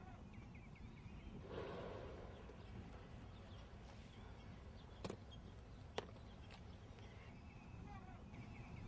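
Faint outdoor park ambience with birds chirping, and two sharp clicks about a second apart near the middle.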